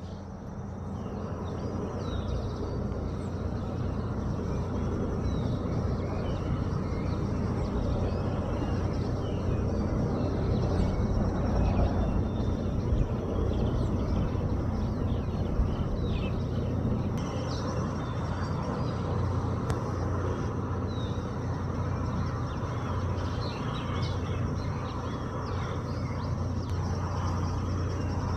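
Steady low outdoor background rumble with a faint hum, and small birds chirping now and then, higher up and faint.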